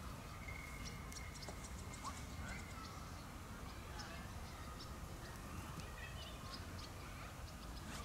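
Goat gnawing at a dead branch: a scatter of small, dry, crisp clicks from the wood and bark, over a steady low wind rumble.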